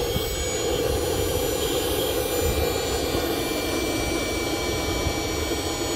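Small turbojet engines running together: a steady rushing noise with several high whining tones held level over it.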